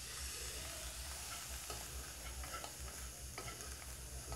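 Ground pork sizzling quietly in a wok while it is stirred with metal spoons, with a few light clicks and scrapes of the spoons against the pan.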